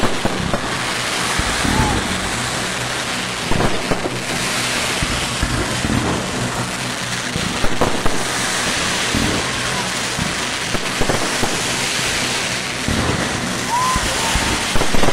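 Fireworks display going off: a continuous hiss and crackle of burning fountains and comets, broken by sharp bangs and launch thumps every second or two.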